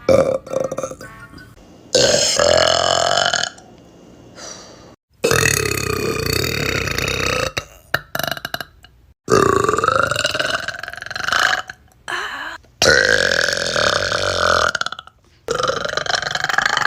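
A run of loud, drawn-out burps from young women, about five long ones in a row, each lasting one to two and a half seconds, with short breaks between them.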